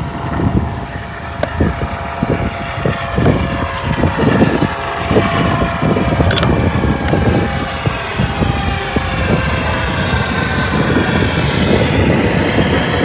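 Wind buffeting the microphone: a steady low rumble that keeps swelling and dipping.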